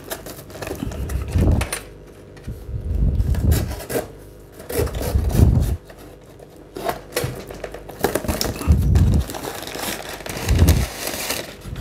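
Cardboard shipping box being torn and pulled open by hand, with crinkling of the paper packing inside and several dull bumps from the box being handled.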